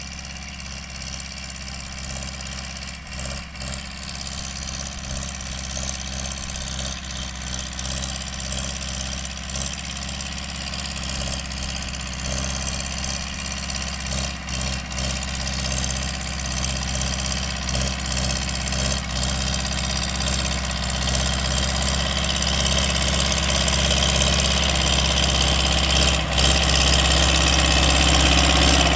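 MTZ-82 tractor's four-cylinder diesel engine running steadily, pulling a plough, growing gradually louder.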